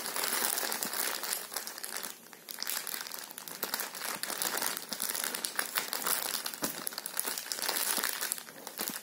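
Clear plastic polybag crinkling and rustling as hands handle a packaged pair of jeggings, with irregular crackles throughout and a brief lull about two seconds in.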